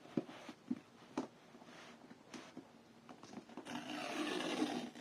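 Cardboard and paper packaging of a laptop box being handled: a few light knocks and taps, then about a second of rustling or scraping near the end.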